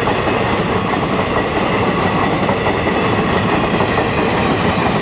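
Passenger train coaches rushing past close by at speed: the steady loud rumble and rattle of steel wheels running over the track.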